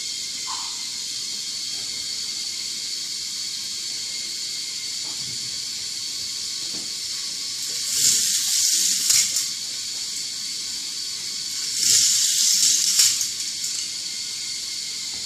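K'nex toy roller coaster running: a steady high whirring hiss from the moving track parts, with two louder rattling rushes a little past halfway and again about four seconds later as the car runs the track.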